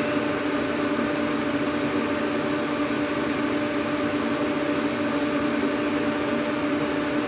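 Ventilation fan running: a steady low hum over an even rushing hiss, with no change throughout.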